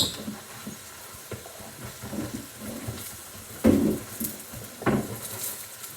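Meat sizzling in a frying pan, a steady hiss, with two knocks about a second apart a little past halfway.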